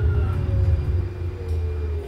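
Light rail train running, heard from inside the car: a steady low rumble with a thin motor whine that falls slowly in pitch.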